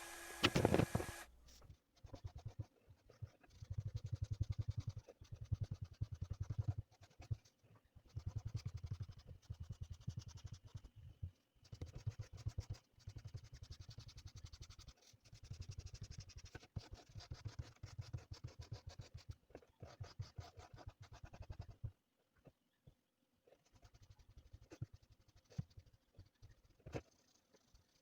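Chalk scratching over a drawing surface in quick back-and-forth strokes, coming in runs of a few seconds with short breaks and a longer pause near the end. A short pitched tone carries over at the very start and cuts off about a second in.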